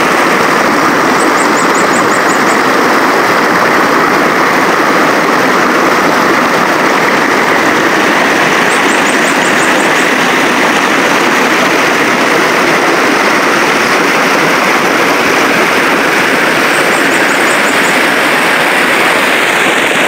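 Shallow river water rushing and splashing over rocks: a loud, steady rush. Three times, about eight seconds apart, a short series of about six quick, high chirps.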